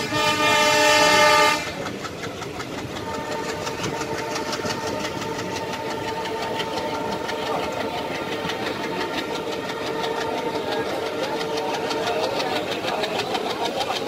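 A locomotive horn sounds one long blast that cuts off about a second and a half in, heard from a coach window. After it, the coaches' wheels clatter rapidly and evenly over the rails, with a steady squeal running underneath.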